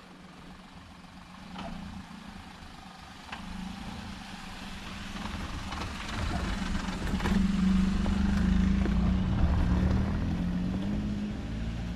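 Maruti Suzuki Alto hatchback's small three-cylinder petrol engine driving over a dirt road, a steady engine hum with tyre noise growing louder as the car approaches and loudest as it passes close by about eight seconds in, then easing a little as it pulls away.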